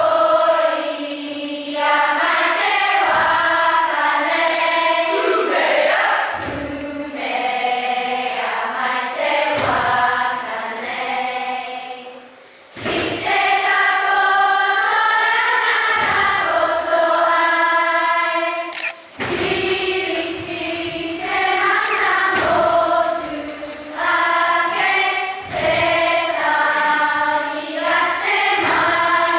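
Children's kapa haka group singing together in phrases, with a short pause about twelve seconds in before the singing resumes.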